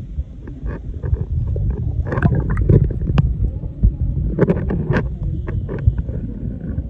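Swimmers' water sloshing and splashing, heard muffled with heavy low rumbling and scattered knocks, busiest in the middle.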